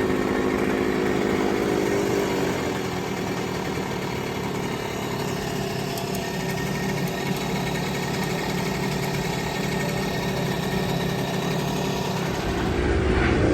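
1966 Harley-Davidson M-50's small single-cylinder two-stroke engine idling steadily as it warms up after a cold kick start. It grows louder with a rising note near the end.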